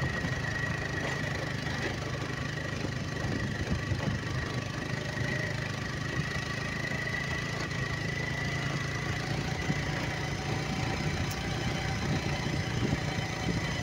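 Motorcycle engine running steadily under way, a constant low hum with a thin steady whine above it.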